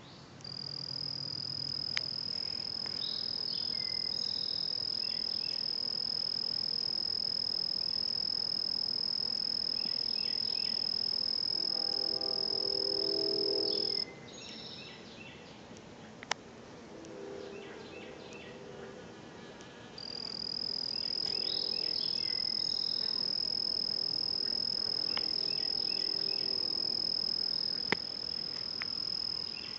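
A cricket trilling one steady high note, which breaks off about halfway through and starts again some six seconds later, with fainter short insect chirps alongside.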